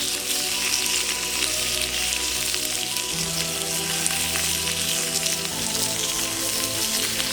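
Food frying, a steady sizzling hiss with fine crackles, under background music of long held low chords.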